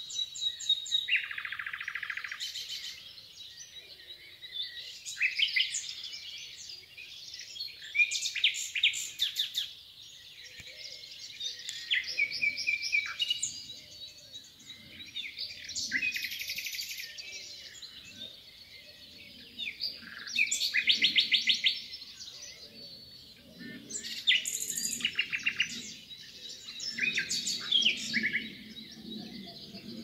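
Common nightingale singing: a string of varied phrases a few seconds apart, many of them rapid runs of repeated notes, with short pauses between.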